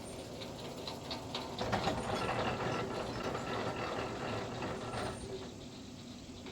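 Machinery running with a steady whine: light clicking at first, louder for a few seconds from about two seconds in, then cutting off fairly suddenly about five seconds in.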